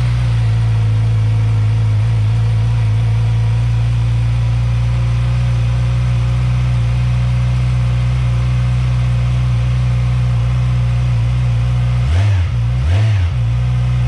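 2017 Yamaha R6's 599 cc inline-four on its stock exhaust, idling steadily just after a cold start, then revved in two quick throttle blips near the end. The stock system sounds extremely quiet.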